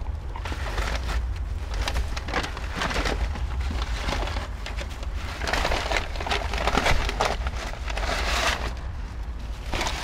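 Paper bag crinkling and rustling, with hay and straw rustling, as a rabbit noses and digs around inside the bag for food. An irregular run of dry crackles and crunches, with a steady low rumble underneath.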